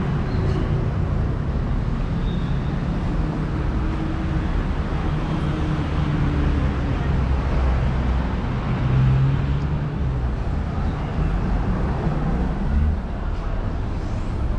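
Street traffic: vehicle engines running as they pass, a steady low rumble whose pitch shifts, swelling about nine seconds in.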